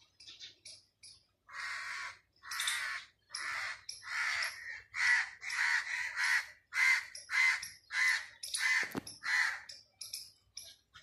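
Crows cawing over and over, harsh calls about two a second, starting a second and a half in and stopping near the end.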